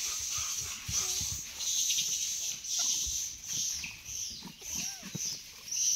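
Rhesus macaques feeding, giving a few short calls that rise and fall in pitch, about a second in and again near the end, over a high chirring that pulses about twice a second.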